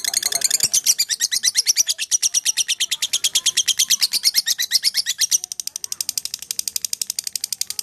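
Lovebird singing a long, rapid chattering trill in full voice, about ten shrill notes a second, growing softer about five seconds in.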